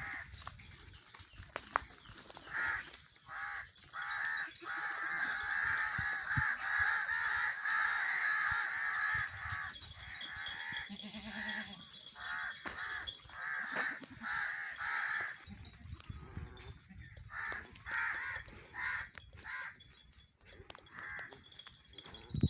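Goats bleating over and over, mixed with crows cawing; the calls come thick and fast at first and thin out in the last third.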